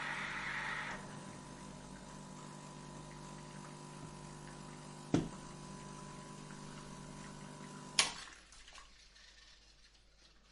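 Electric coffee grinder running. The gritty grinding noise dies away about a second in, leaving the motor humming steadily. A sharp knock comes about halfway, and a sharp click near the end is followed by the hum stopping.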